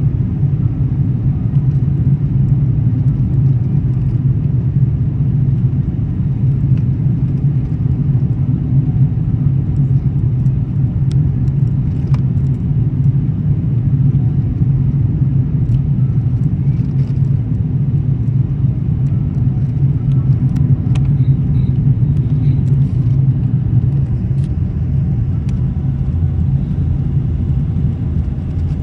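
Steady low rumble of a Singapore Airlines Airbus A380 airliner, even in level throughout, with a few faint clicks.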